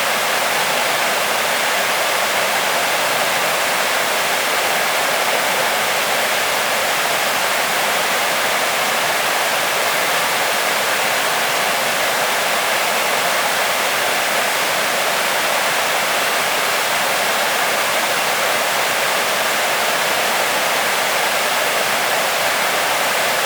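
Waterfall: a steady, loud rush of falling water, even throughout with no breaks.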